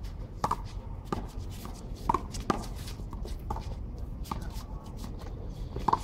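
Small rubber handball being struck by hand and smacking off the concrete wall and court floor during a rally: a string of sharp, irregularly spaced smacks, with sneakers scuffing on the concrete in between.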